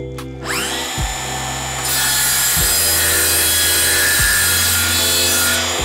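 Circular saw spinning up and cutting through plywood, a steady dense blade-and-wood noise for several seconds that winds down near the end.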